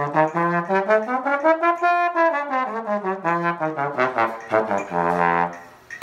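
A single brass instrument playing a quick run of short notes, with a smooth glide up and back down in pitch about two seconds in.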